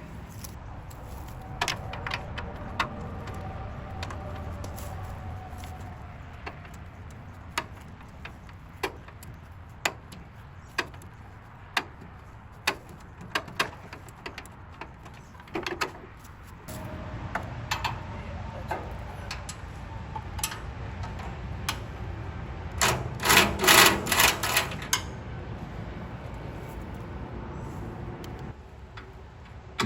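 Hand tools clinking and knocking on the metal housing and bolts of a chipper shredder while its chute is unbolted, with a burst of rapid clicking about three quarters of the way through, over a steady low background hum.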